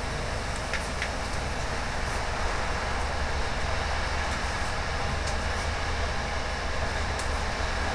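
Passenger train running at speed, heard from inside the carriage: a steady rumble of wheels on the rails, with a few faint, short ticks.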